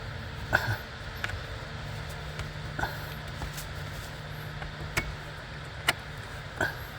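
Scattered sharp clicks and knocks, about six of them a second or so apart, from hand work on a car's blower motor assembly, over a steady low hum.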